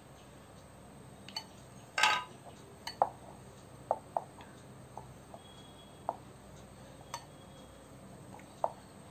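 Glass mixing bowl knocking and clinking as a hand kneads flour and water into dough in it: about ten light clinks with a short ring, the loudest about two seconds in.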